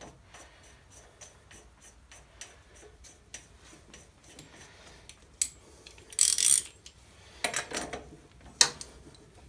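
Light metal clicking and rubbing as a small-engine flywheel is fitted back onto the crankshaft, then a clatter of metal hand tools about six seconds in. A socket ratchet clicks on the flywheel nut near the end.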